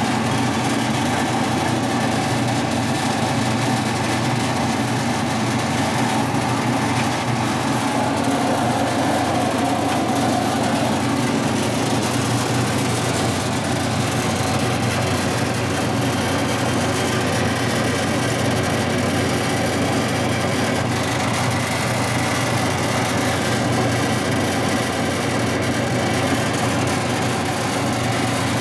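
1960s Boice-Crane 14-inch bandsaw running with a new blade fitted: a steady motor hum and blade whir while the blade's tracking on the wheels is checked.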